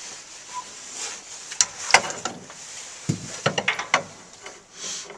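Metal clinks and knocks of a socket wrench working on boiler inspection plugs: a few sharp clicks about two seconds in, then a quick run of clicks a second later.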